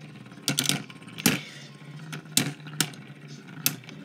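Spinning Beyblade tops whirring steadily in a plastic stadium and clashing about six times with sharp clicks. The battle pits a light-launched Burst Beyblade against a Metal Fight Beyblade.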